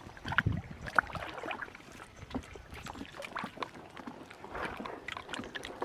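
Guava branch and leaves rustling and crackling as the branch is pulled down by hand, with scattered light knocks from a small boat on the water.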